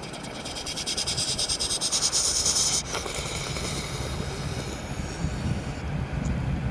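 Mack McNeilus front-loader garbage truck: a loud hiss with a fast pulsing in it cuts off suddenly about three seconds in. The diesel engine's low rumble then builds.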